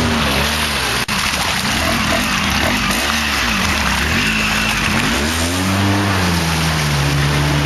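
ATV engine revved up and down over and over, each rise and fall lasting about a second, as the quad sits stuck in deep mud with its wheels spinning. It settles to a steadier note near the end.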